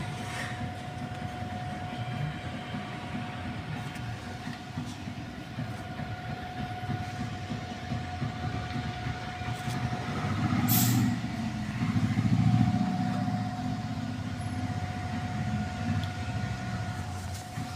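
CNG compressor running: a steady whining tone over a low rumble, with a short burst of hissing about eleven seconds in, and the rumble grows louder for a few seconds around then.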